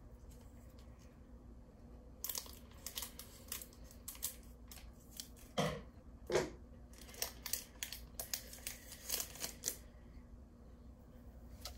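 Foil Pokémon booster pack wrapper crinkling and tearing as it is opened, a run of short crackles with two louder rustles about halfway through.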